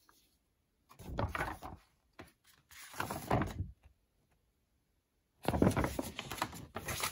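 Sheets of thick paper from a cross-stitch chart being handled and turned over, rustling in three bursts, the last and loudest starting near the end.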